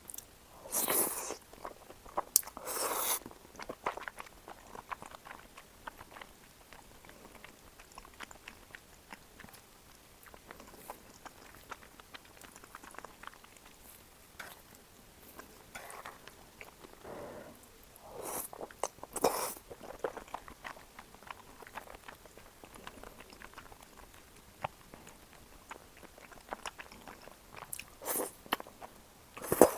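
Close-miked eating sounds of cream tteokbokki: steady chewing with small wet clicks, and a few louder bites about a second in, around three seconds, in the middle and near the end.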